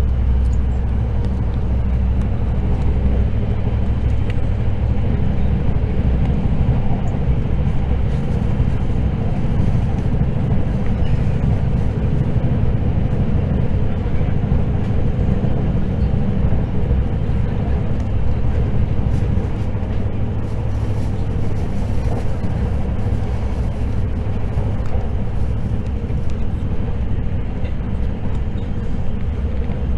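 Steady running noise inside the passenger cabin of a limited express electric train at speed: a low rumble of wheels on rail with a faint steady hum running through it.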